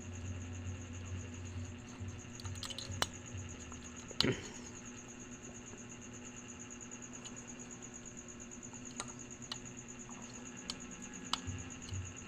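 Scattered light clicks and taps of a bulb and small parts being handled, with sharper clicks about three and four seconds in, over a steady faint high-pitched whine.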